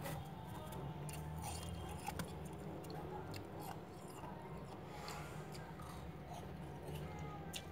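Freezer frost crunching: a scatter of short, soft crisp crunches over a steady low hum.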